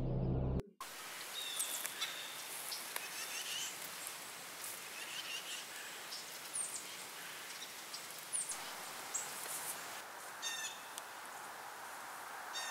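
Intro music cuts off abruptly right at the start, then outdoor ambience: a steady hiss of background noise with scattered short, high bird chirps and calls, including a quick rattling run of notes near the end.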